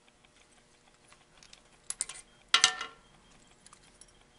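Small metal clicks and rattles as a drill-press fixture's clamp is loosened and the steel hole guide lifted off, with one sharp metal clank that rings briefly about two and a half seconds in.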